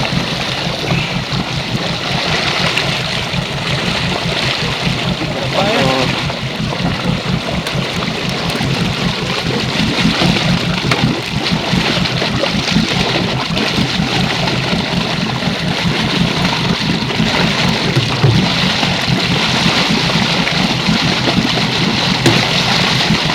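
A boat's engine running steadily, with water rushing and splashing along the hull.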